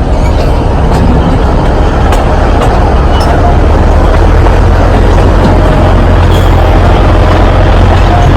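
Alishan Forest Railway train running: a loud, steady rumble with scattered sharp clicks, growing a little louder about three and a half seconds in.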